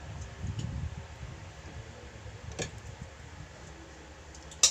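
Eating at a meal: soft low chewing and handling sounds, with a sharp click about two and a half seconds in and a much louder click right at the end.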